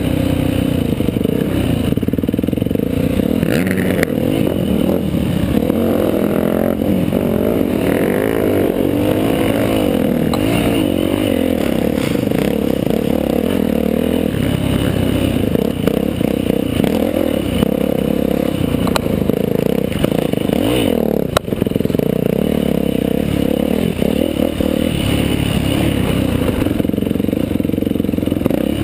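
Off-road dirt bike engine heard up close from the rider's helmet, revving up and down continuously as it is ridden hard over rough, rocky trail, with clattering from the bike over the rocks.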